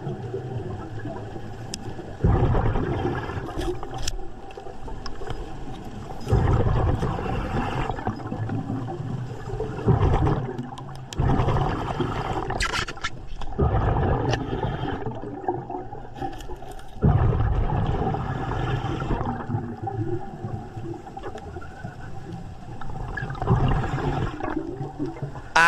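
A diver breathing underwater through a regulator, heard from close by: exhaled air gurgles out in bubbling bursts every two to four seconds, each lasting a second or two.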